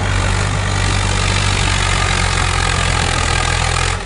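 Swaraj 855 FE tractor's three-cylinder diesel engine running steadily while pulling a mouldboard plough through the soil.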